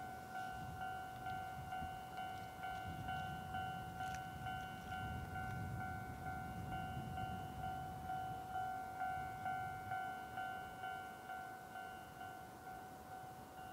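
Railway level-crossing warning bell ringing, an electronic ding repeating a few times a second, growing slightly fainter near the end. A low rumble runs underneath.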